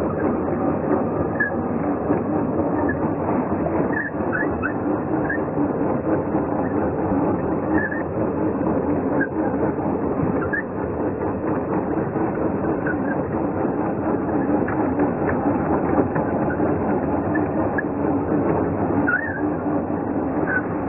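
Small radio-controlled Tiger tank model running, a steady continuous mechanical sound from its drive and tracks.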